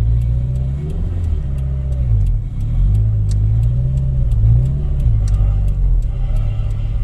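Turbocharged Toyota 86 engine (HKS 4135 turbo) running, its revs rising and falling gently several times. Sharp short ticks come through over it a few times a second, unevenly spaced: a strange noise the owner cannot identify.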